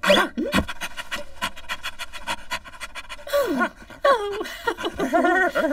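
Rapid, rhythmic panting from a cartoon character for about three seconds. After that come a woman's wordless vocal cries that rise and fall in pitch.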